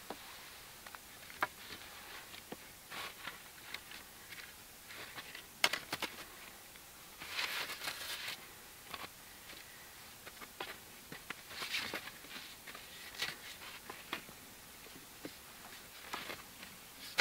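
Wooden sticks knocking and scraping against each other as a tripod of three cord-lashed sticks is twisted and spread open, with scattered sharp clicks and short bursts of rustling from handling.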